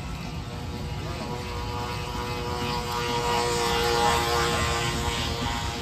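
Radio-controlled scale model patrol boat's motor whining steadily as the boat runs past, growing louder to a peak about four seconds in, then fading.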